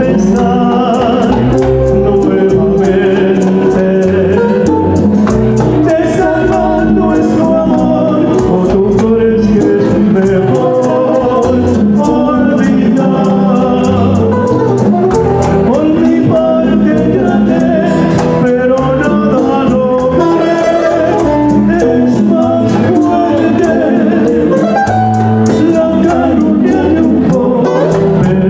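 A Latin romantic trio playing live: acoustic guitars with male voices singing, over a light, steady ticking beat.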